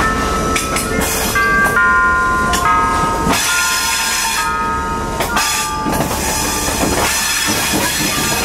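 Passenger train rolling on a curving track: a steady low rumble under high-pitched wheel squeal that jumps between several pitches.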